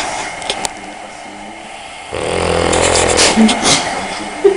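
A sleeping pet snoring: one loud, buzzy snore about two seconds in that lasts about two seconds and fades, after a shorter noisy breath at the very start, over a steady background hiss.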